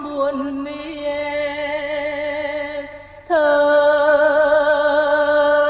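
A female voice sings the closing words of a slow pre-1975 Vietnamese ballad with band accompaniment. She holds one long note with light vibrato, breaks off about three seconds in, then takes up a second long held note that slides down slightly at its start.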